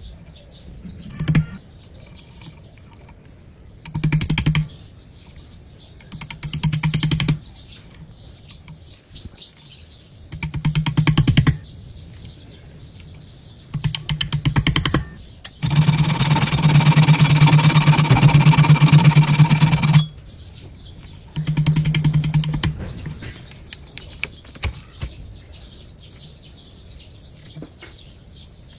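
An electric power tool running in repeated short bursts of about a second each, with one longer, louder run of about four seconds in the middle.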